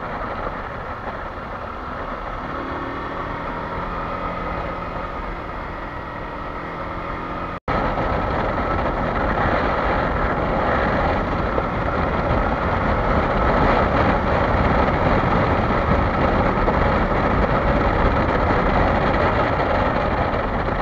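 Kawasaki Versys-X 300's parallel-twin engine running steadily on a dirt and gravel road, under a rush of wind and tyre noise. About seven and a half seconds in, the sound cuts out for an instant and comes back louder and rougher.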